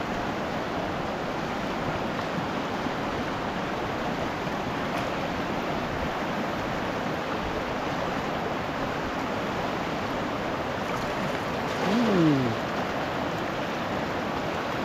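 Fast shallow river rushing over rocks, a steady flow of water. About twelve seconds in, a short voice sound falling in pitch.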